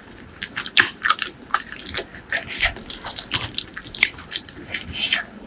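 Close-miked wet eating sounds: chewing and lip-smacking on spicy pork leg curry with rice, a quick, uneven run of moist clicks and smacks.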